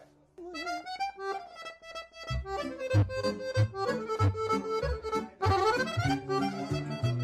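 Pigini button accordion starting a fast instrumental melody after a brief pause, with runs and held notes. About two seconds in, a keyboard backing joins with a steady low bass beat.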